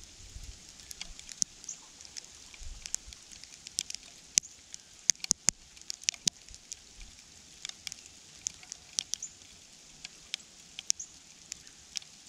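Irregular light ticking and tapping, several small sharp taps a second, with a few faint short high chirps in between.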